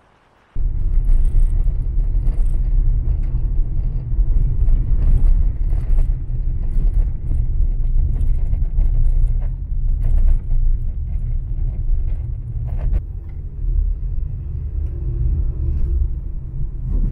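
Motor vehicle driving: a loud, steady low rumble with scattered rattles and knocks. It starts suddenly just after the beginning.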